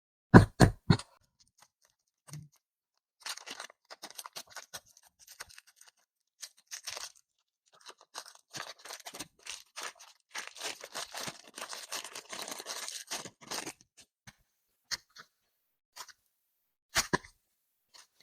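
Close-up handling of clay packaging and clay: three quick knocks, then about ten seconds of crackling, crunching and tearing, and a sharp click near the end.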